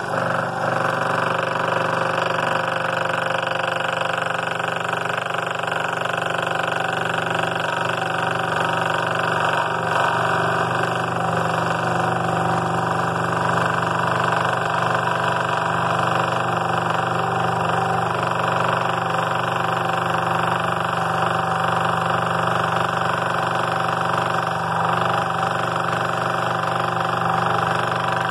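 Scroll saw running steadily with a motor hum, its non-reverse-tooth blade cutting slowly across the grain of a thick cedar block.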